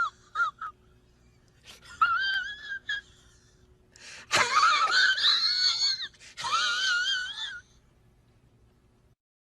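A meme sound effect: a series of high, wavering squeals with a quick vibrato. There are short blips first, then longer cries, the loudest starting with a sharp hit about four seconds in. It falls quiet near the end.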